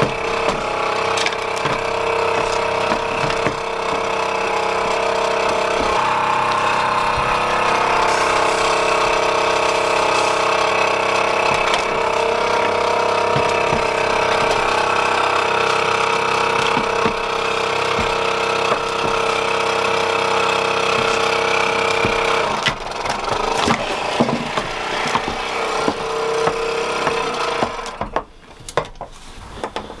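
Hantop portable goat milking machine's electric vacuum pump running with a steady hum while it milks. The hum stops about two-thirds of the way through, and irregular knocks and rattles of the cups, tubes and bucket follow.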